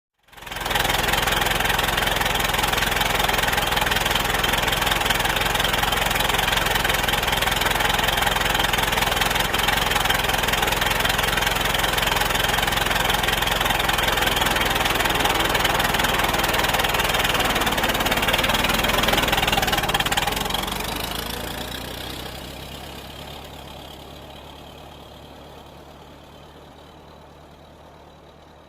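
Old car engine running steadily, starting abruptly at full level, then fading out gradually over the last eight seconds or so.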